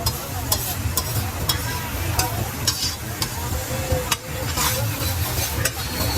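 A metal spatula striking and scraping a hot street-food griddle (tawa), with clicks every half second or so early on that become sparser, over frying sizzle and a steady low rumble.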